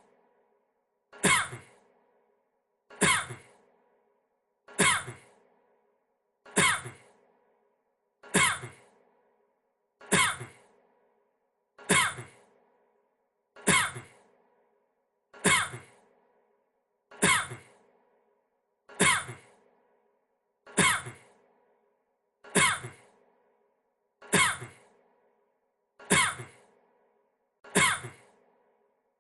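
A man's single short cough played in an identical loop, about one cough every 1.8 seconds.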